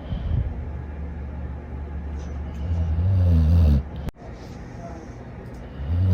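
Dog snoring: one long low snore about three seconds in, the next starting near the end, with quieter low breathing between.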